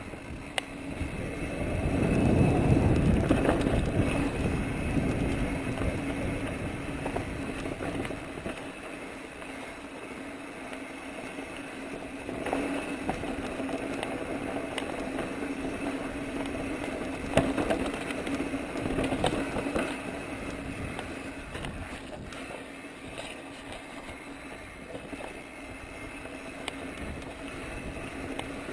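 Mountain bike rolling down a dirt and gravel trail: tyre noise on the ground with scattered sharp clicks and rattles over bumps. Wind buffets the microphone, heaviest from about two to eight seconds in.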